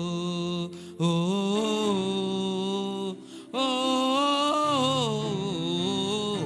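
Worship music: a voice singing long, held wordless notes with vibrato, in three phrases split by short breaks.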